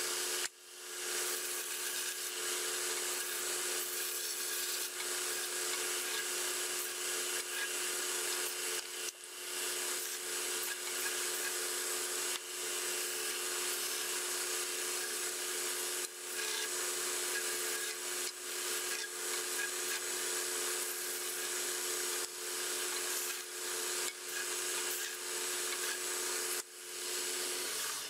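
Narrow-belt bench sander running, with a block of wood pressed against the moving belt and being sanded. It has a steady hum under the rough sanding noise, with brief dips a few times as the pressure on the piece changes, and it stops just before the end.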